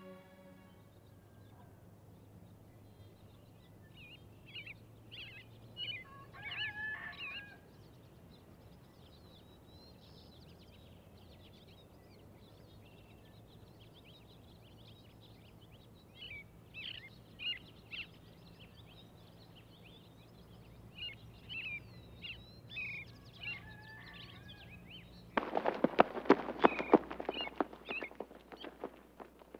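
Songbirds chirping here and there over quiet outdoor ambience with a faint steady hum. About 25 seconds in, a rapid run of loud sharp cracks starts suddenly and lasts about four seconds.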